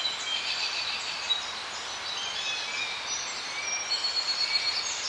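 Outdoor nature ambience: a dense chorus of many short, high chirps and whistles from birds over a steady hiss.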